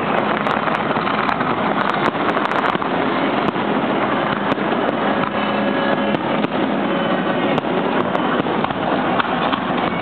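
Fireworks display: a dense, continuous din of bursts and crackling, with sharp pops coming thickest in the first few seconds.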